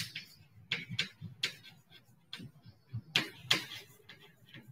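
Chalk writing on a blackboard: a run of irregular, quick taps and short scratches as a word is written out.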